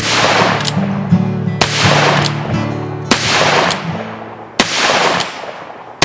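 Pedersoli "Doc Holliday" .38 Special revolver firing four shots about a second and a half apart, each trailing off after the report.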